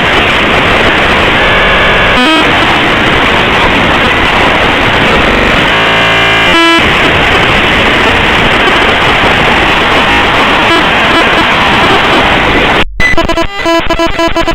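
The bytes of the Linux executable /usr/bin/plasmashell played back as raw audio: a loud, harsh wall of hiss and crackle. It is broken briefly by stuttering stepped buzzes, around two seconds in and again around six seconds in. About thirteen seconds in it drops out for an instant, then turns into a choppy run of repeating buzzy tones.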